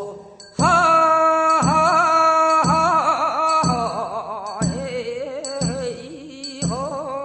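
Korean funeral bier-bearers' song (sangyeo-sori, mangga) from Gyeongsang province: a voice sings a long, wavering lament line that starts about half a second in, over a struck beat about once a second.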